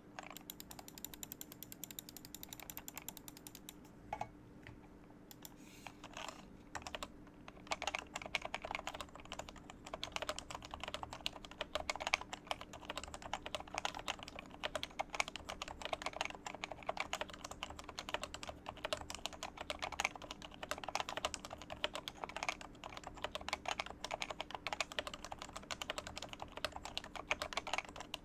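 Typing on an HHKB Professional Classic keyboard with 45 g Metakeebs Topre domes in its Topre switches: a few scattered keystrokes at first, then fast, continuous typing from about seven seconds in.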